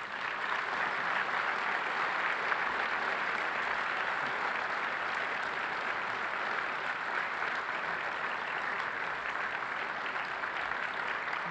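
Audience applauding: dense, steady clapping from many hands that holds level throughout.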